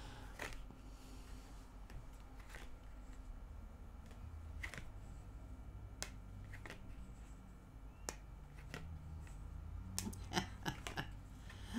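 Tarot cards being handled: scattered faint clicks and flicks as cards are drawn off the deck and laid on the table, over a low steady hum.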